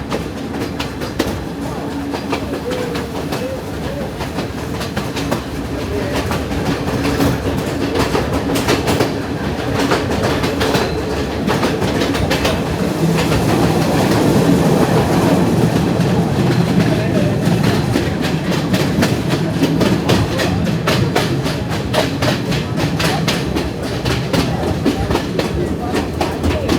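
Passenger train running along the track, heard from aboard: a steady rumble with rapid clicking and clattering of the wheels over rail joints, swelling louder for a few seconds about halfway through.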